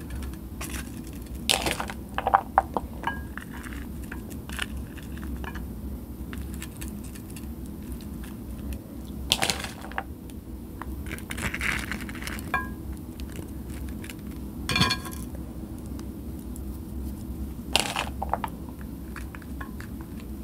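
Hands dressing crunchy taco shells, dropping pinches of shredded lettuce and chopped onion into them and picking more from a plastic bowl: soft crackles and rustles with occasional sharp taps and clicks.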